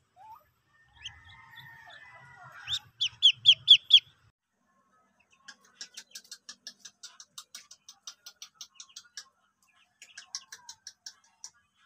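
Muscovy ducklings peeping: five loud, falling peeps in quick succession about three seconds in, then quieter, rapid peeping at about five a second, pausing briefly before starting again near the end.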